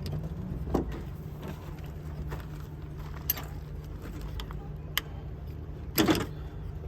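A few sharp clicks and knocks of plastic and metal parts being handled and unplugged inside an opened car door, the loudest near the end, over a steady low hum.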